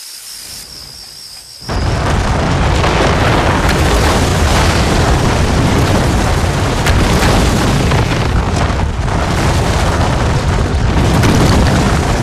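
A stone clock tower collapsing: a sudden loud crash about two seconds in, then a long continuous rumble of falling masonry.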